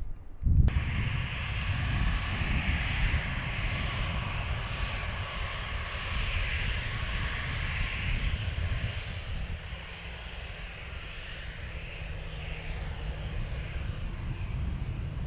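Jet airliner's engines running, a steady roar with a hissing whine on top, easing a little in the second half. Wind on the microphone adds a low rumble.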